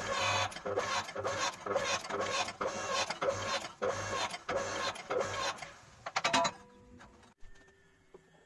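Electric motor and hydraulic pump of a log-splitter forging press running under load as the ram presses a hot billet, pulsing evenly about twice a second. It cuts off about six and a half seconds in.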